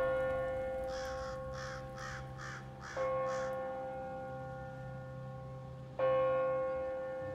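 A bell tolls three times, about three seconds apart, each ring fading slowly. About a second in, a crow caws roughly six times in quick succession.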